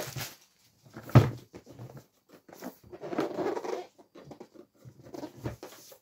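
Cardboard product box being handled and turned over on a tabletop: a sharp knock about a second in, then rustling and scraping of cardboard twice more.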